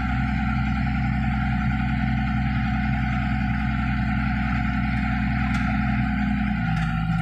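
Wheel loader's diesel engine running steadily, heard from inside the cab. Near the end its note drops a little.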